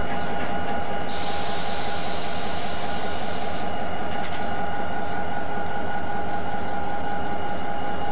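Diesel-electric freight locomotives running, a steady rumble with a constant high whine over it. About a second in, a hiss rises and lasts a couple of seconds.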